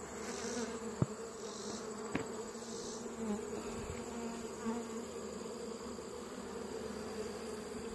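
Honeybees massed on an open hive frame, buzzing in a steady, even hum, with two light clicks about one and two seconds in.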